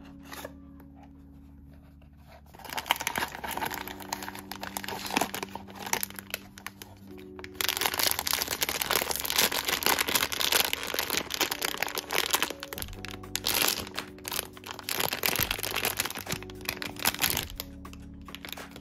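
Blind-box foil pouch crinkling and being torn open, a dense crackling that starts a couple of seconds in and stops shortly before the end, over soft background music.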